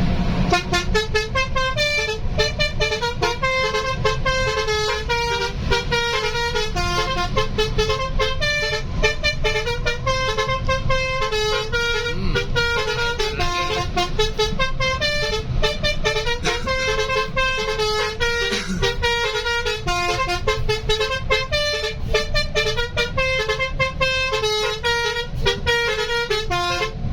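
Basuri telolet horn, the multi-tone melody horn used on Indonesian buses, playing a fast tune of short notes without a break, the pitch jumping several times a second.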